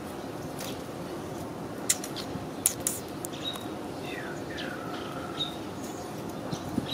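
Outdoor ambience with a bird giving short high chirps about every two seconds and a falling whistled note near the middle, plus a few sharp clicks about two to three seconds in.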